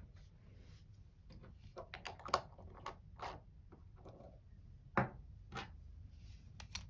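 Small clicks, taps and light scrapes of a plastic fountain pen being handled over paper on a wooden desk. The taps come irregularly, with two sharper clicks about two seconds and five seconds in.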